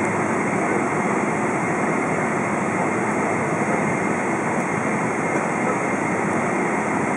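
Steady jet engine and cabin noise inside a Boeing 777-200 as it taxis after landing. It is an even rush with no changes in pitch or level.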